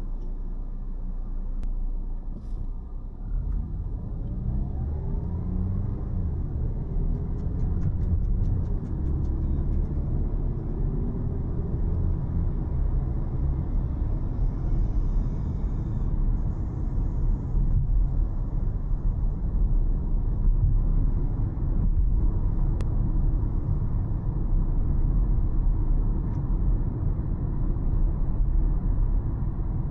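Car driving along a road: steady engine and tyre rumble, with the engine note rising as the car speeds up about three to six seconds in, then running on at speed.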